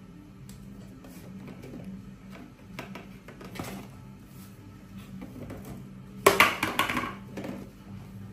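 Plastic food containers and lids clattering and knocking as a small child pulls them about on a plastic storage shelf, with scattered knocks and a loud burst of clatter a little past six seconds in.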